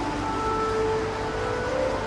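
Steady low hum under a constant wash of background noise, with a few faint held tones drifting over it.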